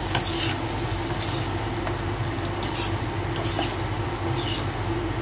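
Metal spatula stirring taro pieces and onions in a kadhai, scraping across the pan a few times, over a steady low hum.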